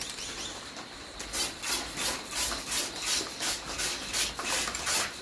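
Aerosol spray-paint can being shaken by hand in an even rhythm of about three strokes a second, starting about a second in.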